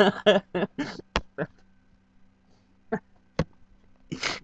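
A young woman's fit of helpless laughter. Short breathy bursts of laughter trail off over the first second and a half, then come two sharp catches of breath and one more breathy burst near the end.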